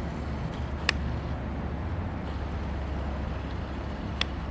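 Steady low background rumble with two sharp clicks, one about a second in and one near the end.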